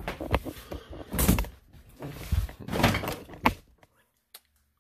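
Refrigerator door being opened and a bowl handled into it: a run of knocks and thuds, the loudest about a second in, stopping abruptly near the end.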